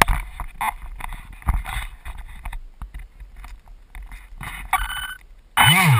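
Rubbing and knocking handling noise from the camera on the flying wing brushing against a fleece jacket. Near the end, the model plane's electric motor and propeller start up loudly, their pitch rising and then falling.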